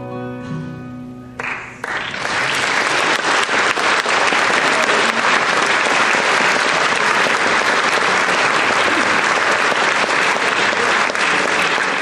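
The last chord of an acoustic guitar and fiddle rings out, then audience applause starts about a second and a half in and carries on.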